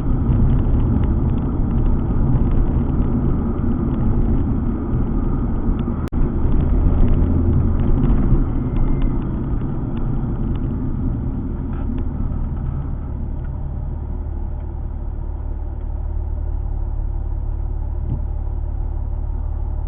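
Alfa Romeo 147 GTA's 3.2-litre V6 and road noise while driving, a low rumble that swells a few seconds in and then settles to a steadier, slightly quieter hum after about ten seconds.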